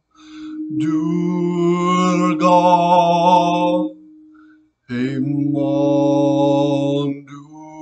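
A man's vocal toning: two long, held sung tones, the first with a slight vibrato, separated by a short break about four seconds in. A steady pure tone sounds beneath the first and lingers faintly after it ends.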